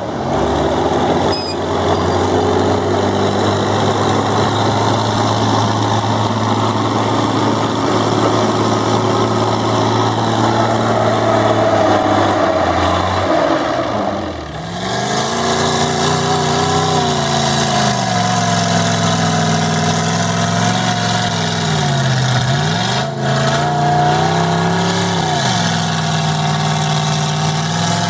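Mud truck engine running hard at fairly steady high revs, then after a short dip about halfway it is revved up and down over and over.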